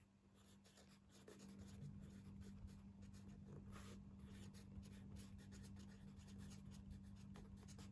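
Faint scratching of a pen writing by hand on a book page, in many short strokes, over a steady low hum.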